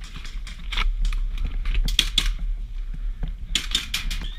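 Airsoft guns firing in an indoor game: a scatter of sharp clicks and snaps from shots and BBs striking, thickest about two seconds in and again near the end.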